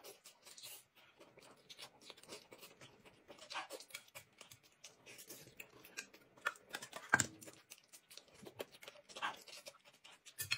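Close, quiet eating sounds: chewing and slurping dumplings, with light clicks of chopsticks against a porcelain plate and the crinkle of a small plastic sauce packet being handled. A sharper click comes about seven seconds in.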